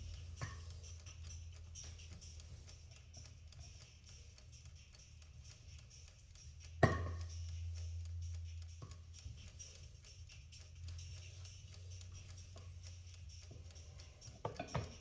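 Light knocks and clicks of food being handled and laid onto flatbread on a wooden board, with one sharper knock about seven seconds in, over a steady low hum.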